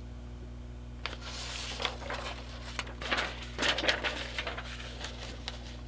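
A rolled paper printout rustling and crinkling as it is picked up and handled, in quick irregular crackles starting about a second in.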